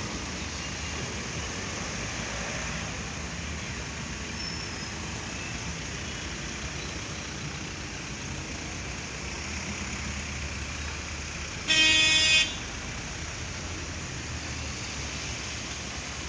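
Steady street and traffic noise as a coupled pair of trams rolls slowly past, one towing the other. About three-quarters of the way through, a vehicle horn sounds one blast of just under a second, the loudest sound.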